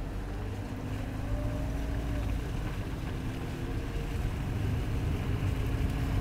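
Car driving on a wet, slushy road: a steady low rumble of engine and tyres with a faint hum, slowly growing louder.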